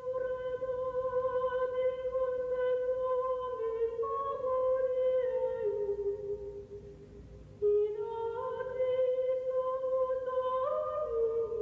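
Slow hummed melody of long held notes that step between a few pitches, with a short break between phrases about seven seconds in.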